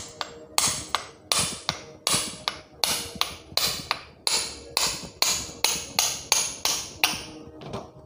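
Repeated sharp metal taps, about three a second, knocking a table fan's steel shaft out of its rotor, each strike ringing briefly; the taps stop just before the end.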